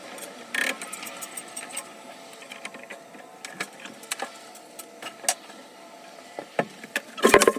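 Scattered sharp clicks and knocks of hand tools and metal plumbing parts being handled, with a louder cluster of knocks near the end.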